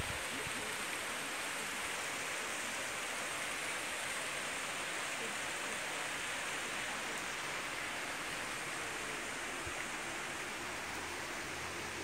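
Shallow rocky mountain stream flowing, a steady rush of water.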